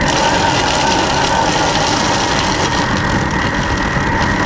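Countertop blender-cooker's motor running at high speed, blending a thick date and chistorra purée: a loud steady whine over a rushing noise. The purée is coming together.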